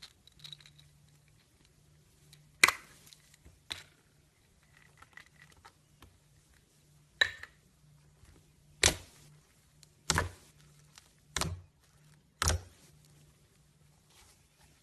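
Slime being pressed and worked by hand, giving off sharp, brief pops as air pockets burst, about seven at irregular intervals and closer together in the second half.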